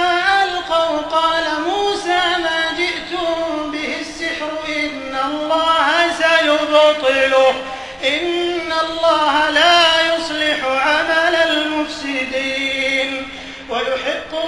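A man chanting Quran recitation in the melodic tajweed style. His long, drawn-out phrases rise and fall in pitch, with brief breath breaks between them.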